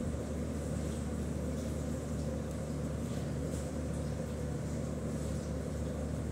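Steady low machine hum, with faint scratches of a pen writing on paper now and then.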